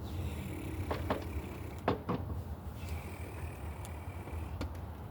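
Wire cutters snipping the ends of twisted copper electrical wires: a few short, sharp clicks over a steady low hum.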